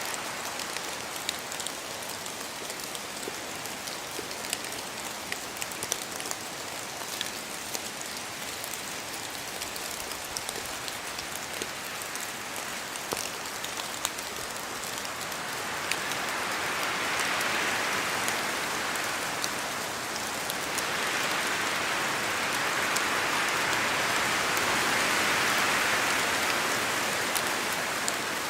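Rain falling in a spruce forest: a steady hiss of rain dotted with many sharp drop ticks. Wind blows through the spruce trees, swelling twice in the second half, the second swell longer.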